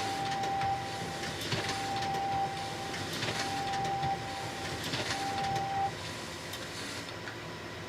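Photocopier running through repeated copy cycles: a whine and clicking that come in passes of about a second, four times, then stop about six seconds in, leaving the machine's quieter steady hum.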